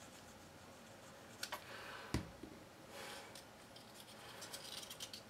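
Faint handling sounds of cardstock pieces being pressed and glued together by hand: soft paper rustling and a few small clicks, with one sharper knock about two seconds in.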